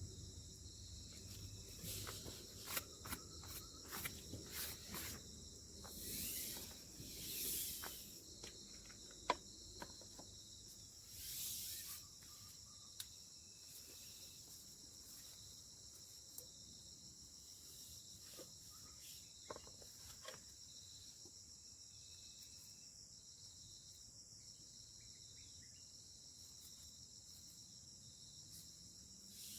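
Steady high-pitched chorus of forest insects, cricket-like, running throughout. Scattered clicks and a few short rustles come in the first twelve seconds or so.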